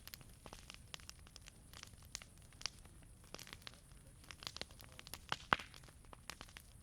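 Wood campfire crackling: irregular sharp pops and snaps over a soft low hiss, with one louder pop about five and a half seconds in.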